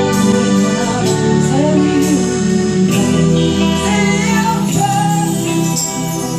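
A rock band of drums, electric guitars, keyboard and bass playing a song, with a male lead vocal singing over sustained chords and a steady drum beat.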